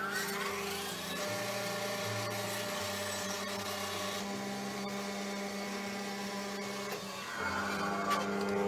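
A workshop machine's electric motor running with a steady hum and whine. Its pitch rises as it spins up at the start and falls as it winds down near the end.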